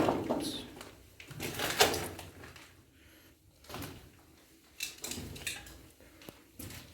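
Footsteps scuffing and scraping on the floor of a small, echoing concrete shelter, in about five irregular bursts.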